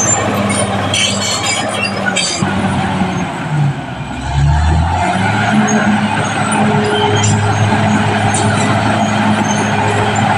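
Caterpillar D6R bulldozer's diesel engine running steadily under work, with short metallic clinks in the first couple of seconds. About three to four seconds in, the engine note dips and slides in pitch, then settles back to a steady run.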